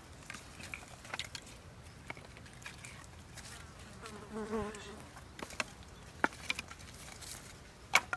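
Dry wooden sticks and branches clicking and knocking against one another as they are laid by hand on bare soil, with scattered taps and a sharper knock near the end. A brief buzz lasts for under a second about halfway through.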